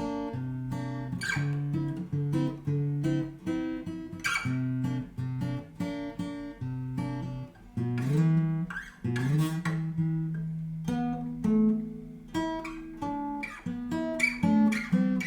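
Yamaha FG850 all-mahogany dreadnought acoustic guitar played fingerstyle: a picked melody over held bass notes, with a few brushed chords and two notes slid upward about halfway through.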